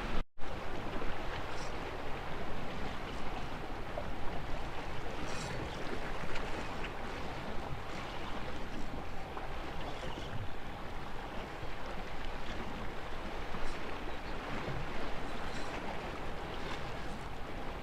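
Steady rushing of wind and waves washing against the jetty rocks, with wind buffeting the microphone. A brief dropout cuts in about a quarter second in.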